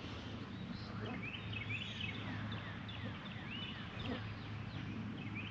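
Birds chirping: many short, high calls, some sliding up or down, scattered throughout, over a low steady hum.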